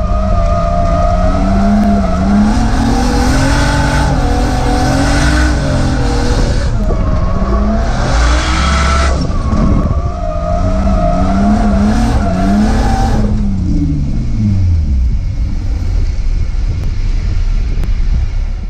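Turbocharged Lexus IS300 straight-six heard from inside the cabin, revving up and down hard during a drift run with bursts of tyre squeal. A little past two-thirds of the way through, the revs fall away and the car runs on more quietly.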